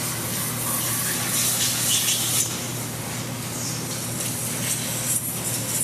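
A steady hissing spray that swells and eases, over a low steady hum.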